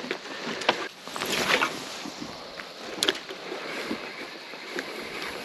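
Soft water sloshing around a small fishing boat, with light handling noise from a spinning rod and reel: a swish about a second in and a sharp click about three seconds in.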